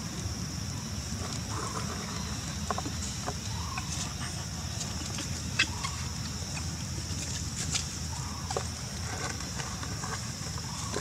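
Outdoor ambience: a steady high-pitched insect drone, with scattered short clucking calls and faint clicks over a low rumble.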